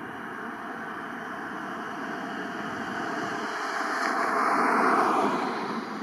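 A vehicle passing close by: a rushing noise builds slowly, peaks about five seconds in and fades quickly.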